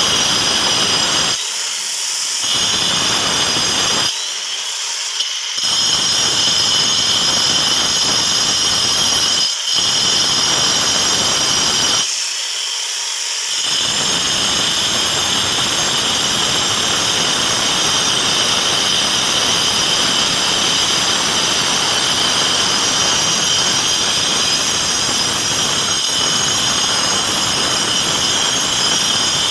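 Handheld angle grinder with a cutting disc grinding the edge of a sink cut-out in a granite countertop: a steady high motor whine over a gritty grinding noise. The grinding noise drops away briefly several times while the whine carries on.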